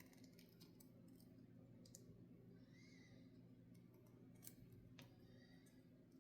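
Near silence with a few faint, scattered clicks of hard plastic: an anti-snoring mouthpiece being pushed and handled while its parts are worked apart, over a steady low hum.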